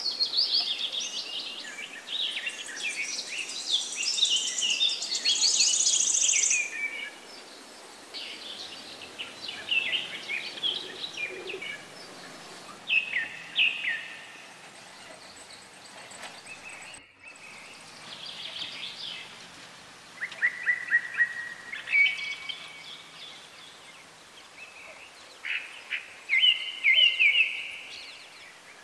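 A flock of jungle babblers calling: rapid, chattering call notes, thick and overlapping for the first seven seconds, then in short bouts separated by pauses. The sound cuts out for an instant about halfway through.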